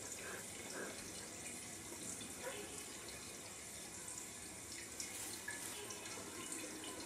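Faint, steady hiss of background noise, with a few soft faint sounds.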